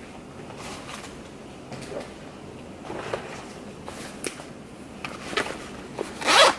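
Handling noise from a black fabric tool-organizer pouch being lifted and opened: faint rustling and a few small clicks, then a short, louder rasp of the pouch near the end.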